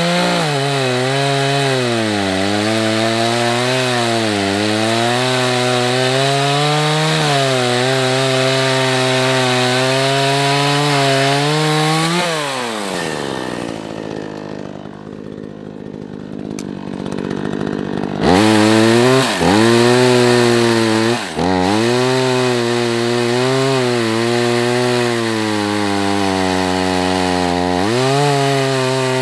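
Craftsman chainsaw cutting into a tree trunk, its pitch dipping and recovering as the chain bites into the wood. About twelve seconds in it drops to idle for a few seconds, then is revved back up, loudest just after, and goes on cutting with the same dips in pitch.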